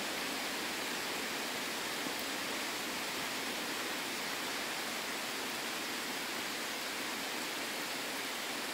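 Steady rain falling on the surface of a river, an even, unbroken hiss.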